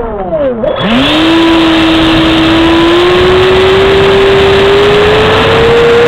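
Onboard sound of a radio-controlled L-59 model jet's power unit. Its whine falls away during the first half-second, then about a second in it spools back up to a steady high whine that keeps rising slowly in pitch, over a loud rushing noise, as the model rolls along the runway.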